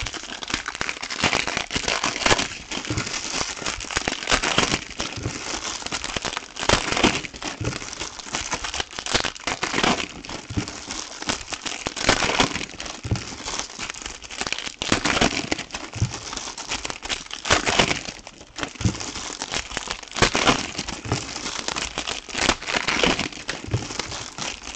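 Silver foil wrappers of Topps Chrome trading-card packs crinkling and crackling as they are torn open and handled by hand, a dense, irregular run of sharp crackles.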